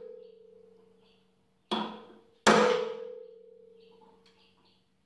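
Ball-peen hammer striking a center punch held against the end of the fan's steel shaft, punching a deep center mark for a gear puller. A lighter tap comes about a second and a half in, then a hard blow, which leaves a metallic ringing tone that fades over about two seconds.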